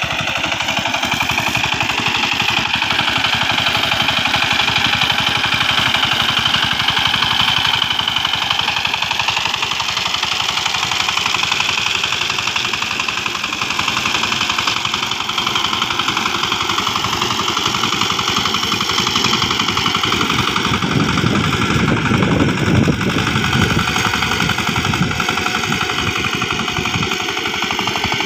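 Single-cylinder diesel engine of a two-wheel power tiller running steadily under load as it works through a wet rice field, with a rapid, even firing beat. It runs a little louder and lower for a few seconds about twenty seconds in.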